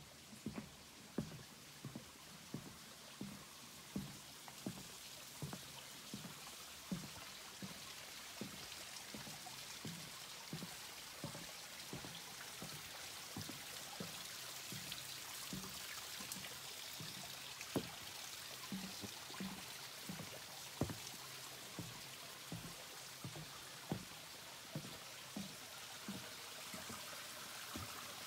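Footsteps on a wooden boardwalk, a dull thud about every two-thirds of a second, over the steady rush of a creek that grows slowly louder.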